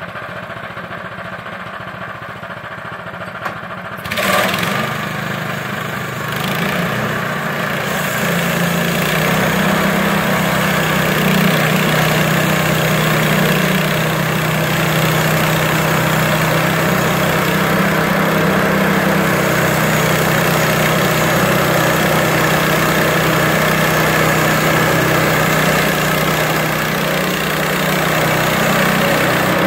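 Portable bandsaw mill's engine idling, then revving up sharply about four seconds in and running steadily at speed while the band blade cuts through a spruce log.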